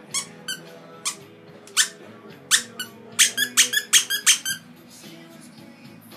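A dog's squeaky toy monkey squeaked repeatedly as the dog chews on it: short, high-pitched squeaks, a few spaced apart at first, then a quick run of about ten in the middle.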